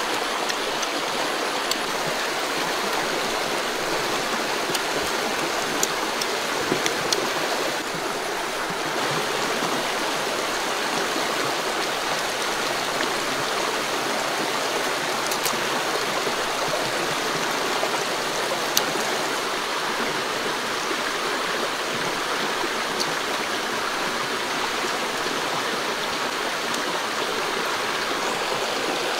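Shallow stream running over rocks, a steady, unbroken rush of water, with a few faint clicks over it.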